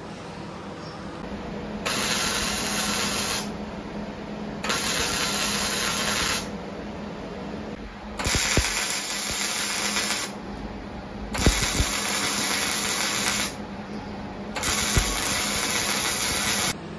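MIG welder arc crackling and sizzling in five short bursts of about two seconds each, with brief pauses between: bracket hardware being tacked and stitched onto a Ford 9-inch axle tube. A low steady hum runs underneath.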